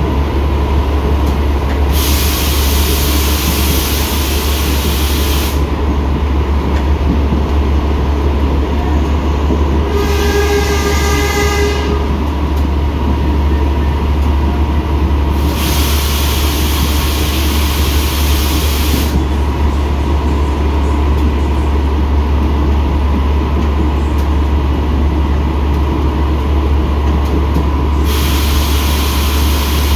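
Steady heavy rumble of a moving metre-gauge passenger train heard from inside the coach, with a high hiss that swells and fades a few times. A train horn sounds for about two seconds about ten seconds in.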